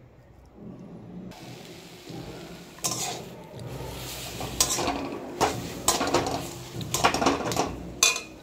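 A spatula scrapes and knocks against a metal kadai in irregular strokes, starting about three seconds in, as chhena kneaded with sugar is stirred over the gas flame. A faint steady hiss runs under it.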